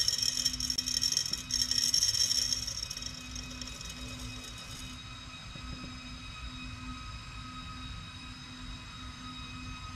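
Silver granules poured from a small boat into a graphite crucible: a dense tinkling rattle for the first three seconds that trails off by about five seconds. Under it, a steady electrical hum with a few faint whining tones.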